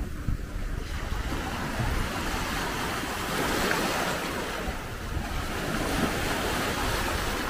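Sea water washing and splashing with wind buffeting the microphone over a steady low rumble.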